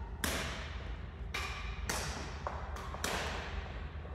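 Badminton rackets striking a shuttlecock in a rally, four sharp hits about a second apart, each ringing in the hall, over a steady low hum.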